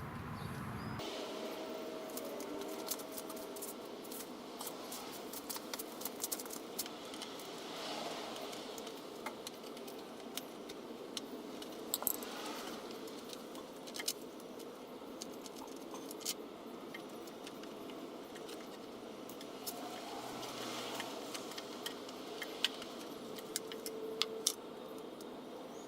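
Hand tools and small metal parts clicking and clinking as the lawn edger's carburetor is worked on: scattered sharp ticks and taps over a steady hiss.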